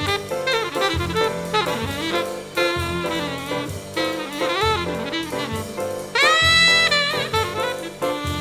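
Jazz music with a lead saxophone over drums. The saxophone plays a quick, winding line, then swoops up into a loud, held high note about six seconds in.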